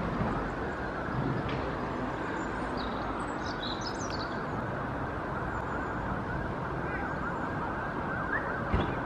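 Steady background rumble of distant traffic, with a few faint high bird chirps about three to four seconds in and a short knock near the end.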